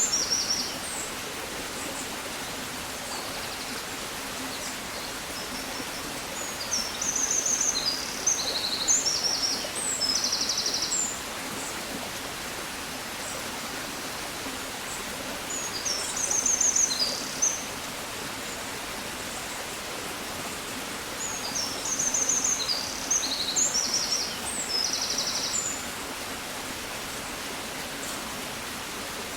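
A songbird singing high, quick phrases of chirps and trills, each a few seconds long and repeated about every seven or eight seconds, over a steady background hiss.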